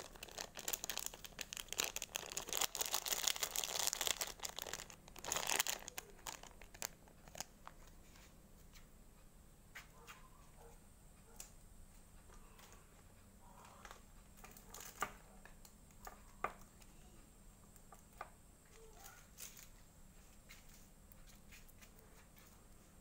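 Crinkly plastic candy wrapper rustling as small candies are shaken out onto a sectioned platter, for about the first six seconds. After that only a few faint scattered clicks and taps.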